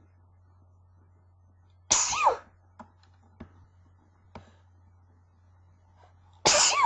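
Two loud sneezes in a sneezing fit from a person sick with a cold: one about two seconds in and another near the end, each ending in a falling tone. A few faint short clicks come between them.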